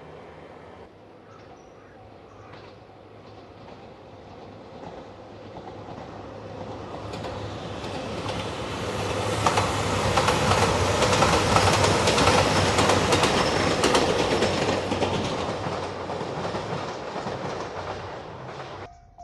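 JR Shikoku 2700 series diesel limited express train passing at speed. Its engine and wheel noise build over several seconds, peak with a rapid clickety-clack of wheels over rail joints as it goes by, then fade away.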